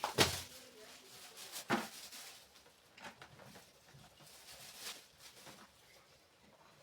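Two sharp knocks about a second and a half apart, followed by a few lighter clicks and faint clatter.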